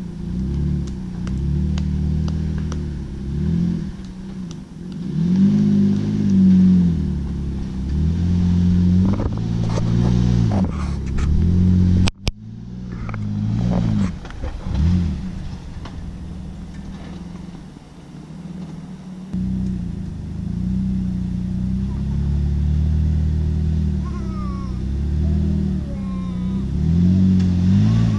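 Jeep's engine revving up and down in low gear as it crawls over a rough, rutted off-road climb, the pitch rising and falling with each push on the throttle. The sound breaks off briefly about halfway through.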